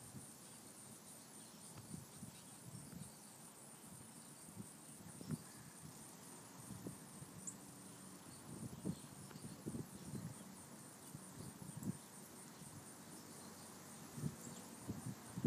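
Insects trilling steadily and high-pitched with a fast, even pulse, over faint outdoor background, with scattered soft low thumps.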